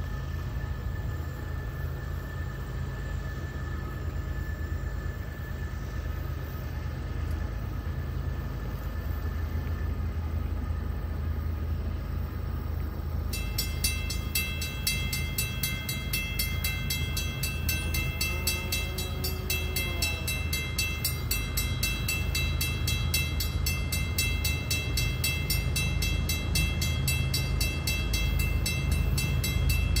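Diesel locomotives of a loaded freight train working hard upgrade, heard as a distant low rumble that grows slowly louder as the train approaches. The lead unit is a GE ES44AC. About halfway through, a fast, even, high-pitched ringing starts up and keeps on.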